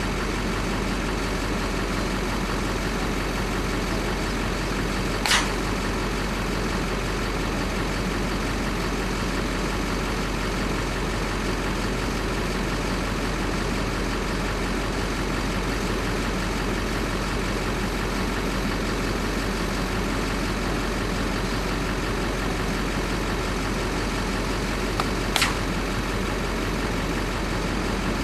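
Vehicle engine idling steadily, with two short sharp clicks, one about five seconds in and one near the end.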